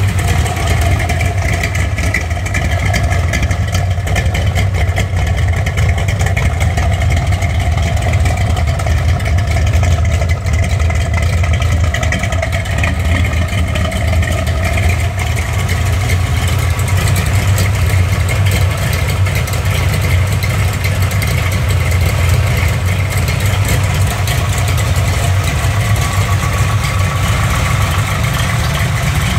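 Chevrolet big-block 454 V8, bored .060 over with forged pistons and a hydraulic roller cam, running steadily at idle on an engine run stand. It exhausts through open headers and straight pipes with no mufflers.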